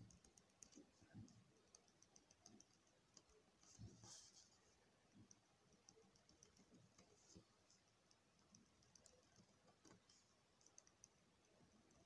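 Near silence with faint scattered clicks and light scratching of a ballpoint pen drawing lines on paper.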